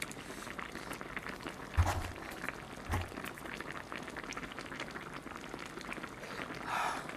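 Eating sounds: a hot piece of soft braised radish is blown on and bitten, with two dull thumps about two and three seconds in. Underneath runs the steady crackle of spicy braised mackerel stew simmering in its pot on medium-low heat.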